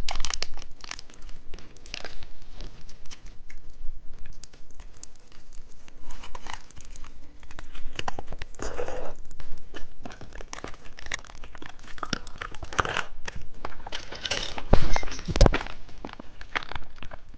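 Plastic candy packaging crinkling and tearing in irregular bursts while it is handled, with a couple of sharper knocks about three-quarters of the way through.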